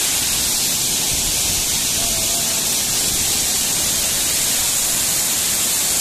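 Waterfall pouring down a rock face into a pool: a steady rushing hiss of falling water.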